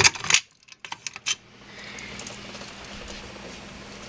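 Keys jangling and sharp metallic clicks as a Simplex fire alarm pull station is unlocked and reset with its key: a cluster of clicks right at the start, a few more about a second in, then only faint background hiss.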